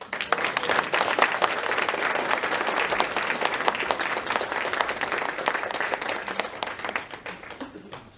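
Audience applauding at the end of a choral song: dense clapping that starts suddenly, stays loud, and dies away near the end.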